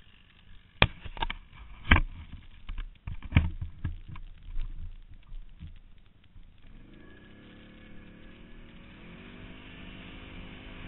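A run of sharp, loud knocks as a quad bike jolts over a rutted snowy track, then about two-thirds of the way through the quad's engine note comes in, rising in pitch in two steps and holding steady.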